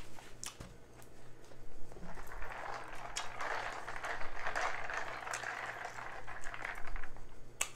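A plastic tumbler being shaken, its contents rattling and sloshing, for about five seconds starting about two seconds in.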